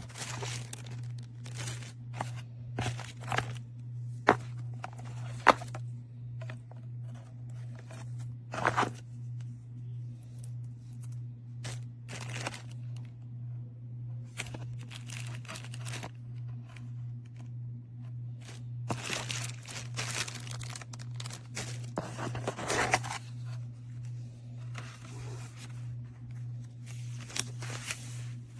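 Packaging or plastic parts being handled: scattered crinkling, rustling and tearing with sharp clicks, the loudest two clicks about four and five seconds in, over a steady low hum.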